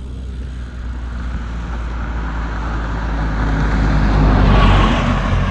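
A motor vehicle approaching and passing, its engine and tyre noise growing louder to a peak about four and a half seconds in, then fading.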